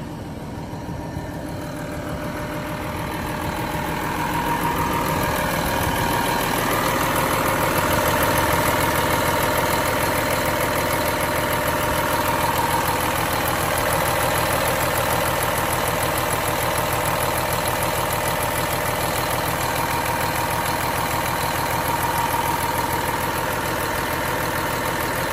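Cummins ISM 350 inline-six diesel idling steadily, heard up close with the crankcase opened at its filler for a blow-by check, growing louder over the first several seconds and then holding even. No heavy blow-by: the engine is running well.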